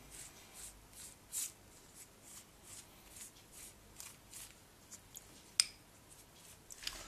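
Faint, quick swishes of a pastry brush being stroked over sheets of puff pastry to wet them with water, about two or three strokes a second, with a single sharper tap late on.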